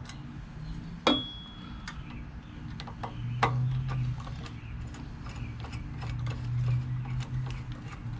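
A stubby Phillips screwdriver turning out the screws of a generator's air filter housing, making small irregular metallic clicks and scrapes. A sharper click about a second in rings briefly. A low hum runs underneath and swells twice.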